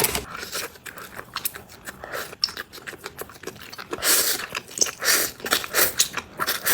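Close-miked eating of noodles: chewing and biting with many small wet clicks, then several louder, hissy bursts of mouth noise from about four seconds in.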